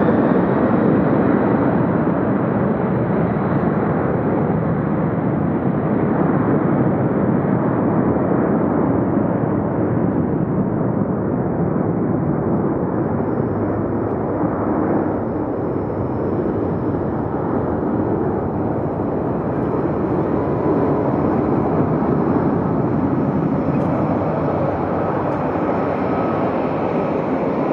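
McDonnell Douglas MD-11 trijet freighter's engines running as the aircraft moves away along the runway. It is a steady, loud jet rumble whose higher hiss and whine fade after about ten seconds as the plane recedes.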